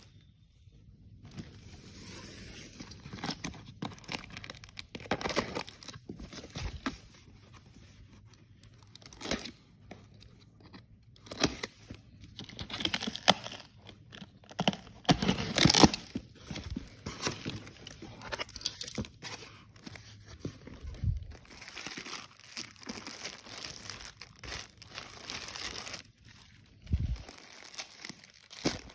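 Parcel packaging being handled and torn open by hand: irregular crinkling and tearing, with the loudest burst about halfway through.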